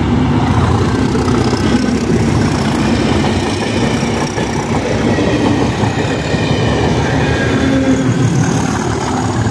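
Two Class 37 diesel locomotives of a Network Rail test train passing close under power, their English Electric V12 engines throttled up, with wheels clattering over the rail joints.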